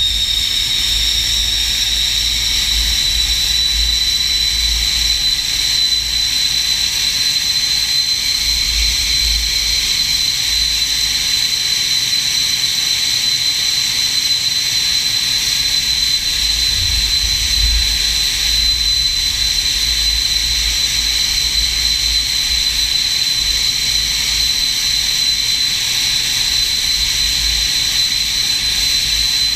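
SEPECAT Jaguar's Rolls-Royce Turbomeca Adour turbofan engines running on a ground run, with a steady high turbine whine that edges up slightly in the first few seconds and then holds, over an uneven low rumble.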